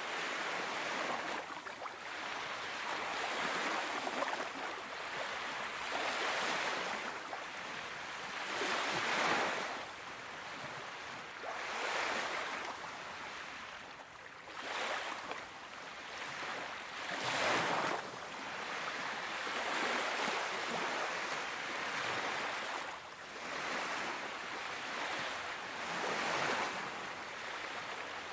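Small waves of the Baltic Sea lapping and washing up onto a sandy beach, each wash swelling and fading every two to three seconds.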